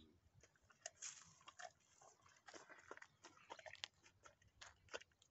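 Faint, irregular crunching and clicking of an animal chewing.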